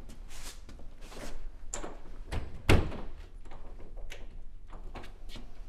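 A door being shut with one loud thump about two and a half seconds in, among several smaller knocks and clicks.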